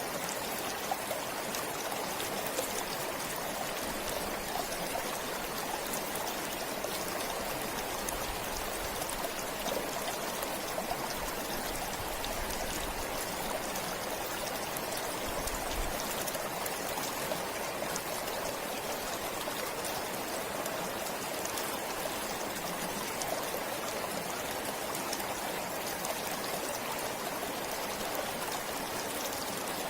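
A forest stream flowing steadily: a continuous rush of water with fine trickling and small splashes.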